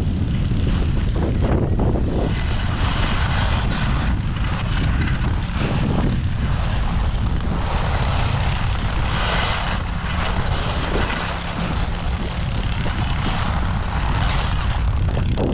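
Skis side-slipping down a groomed race course: a steady scraping hiss of ski edges on snow that swells and eases, under a heavy wind rumble on the camera microphone.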